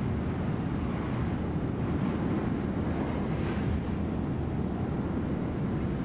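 Wind blowing steadily over a snowy mountaintop, a low rumbling rush with wind buffeting the microphone, swelling slightly about three and a half seconds in.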